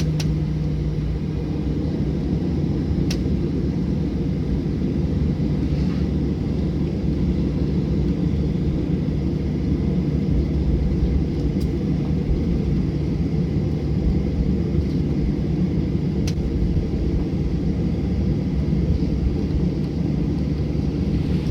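Cabin noise of a Boeing 737-800 taxiing after landing: a steady low rumble of the idling CFM56 engines and the rolling aircraft, with a few faint clicks.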